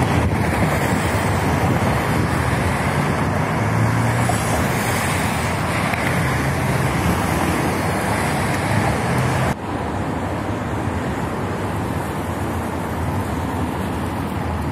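Steady road traffic from cars passing close by, with wind rushing on the microphone. About two-thirds of the way through it cuts suddenly to a slightly quieter, duller rush of wind and traffic.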